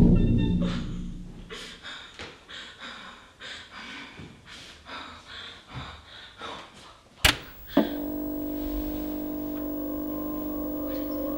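Scattered light knocks and taps, then two sharp thuds about seven seconds in. After the thuds a steady, eerie drone of several held tones sets in.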